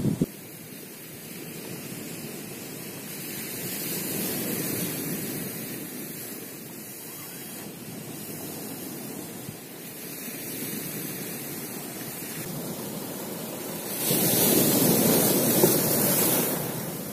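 Sea surf breaking and washing over a rocky pebble shore, a steady rush that swells now and then; the loudest wave breaks about fourteen seconds in and runs for two or three seconds.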